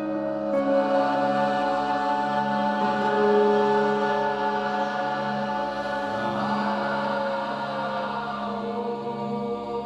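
Several voices chanting long held notes together over a steady low drone, the chord changing about six seconds in.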